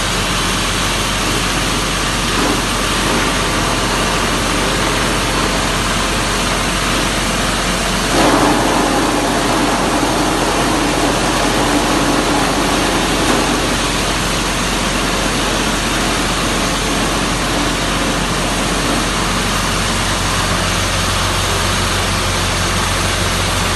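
Sunflower thresher running steadily: a constant low engine hum under a loud, even rushing noise. It grows louder and rougher for a few seconds about eight seconds in, then settles back.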